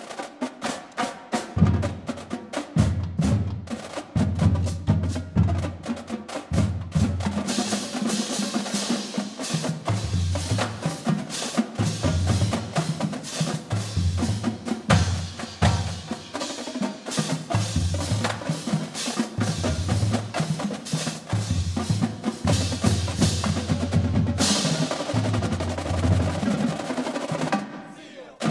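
High school marching drumline playing: rapid snare drum stick strokes over a pulsing pattern of bass drum hits. About three-quarters through, a ringing crash sets in and fades, and the playing drops off near the end.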